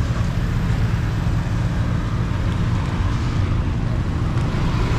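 Street traffic running steadily: a continuous low rumble of passing motor vehicles.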